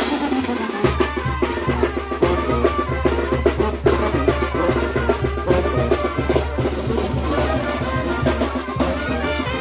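Mexican wind band (banda) playing a chilena, with brass carrying the tune over a steady drum beat.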